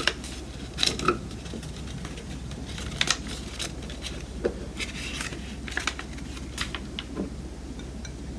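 Chopped takuan (pickled daikon) pieces tipped off a paper sheet into a clear cup: scattered light clicks and taps as pieces drop and the cup is handled, with some paper rustling.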